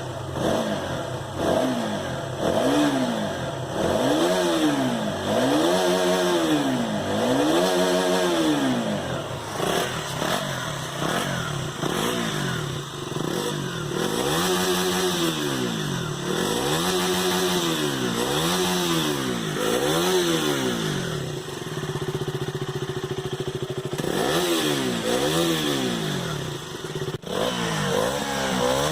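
KTM Duke 200's single-cylinder engine on its stock exhaust, blipped again and again from idle, each rev rising and dropping back. It settles into a steady idle for a few seconds about three-quarters of the way through, then the blips resume.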